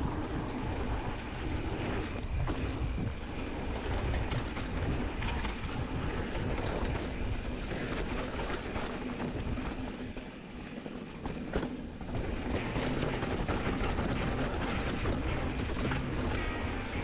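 Giant Trance 3 29er mountain bike running fast down a dirt trail: tyre rumble and a constant rattle of chain and frame over the bumps, with wind buffeting the microphone. It goes briefly quieter about two-thirds of the way through, broken by one sharp knock.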